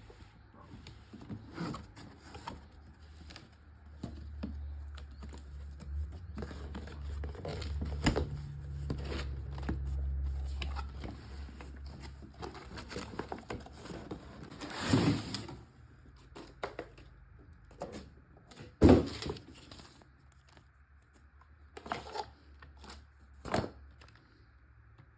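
Handling and unpacking sounds: scattered clicks, knocks, scrapes and rustling of packaging, with a rustling swell about fifteen seconds in and a sharp loud knock a few seconds later.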